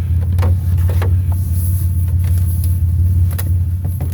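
A steady low hum like a running motor, with a few short clicks and knocks scattered through it.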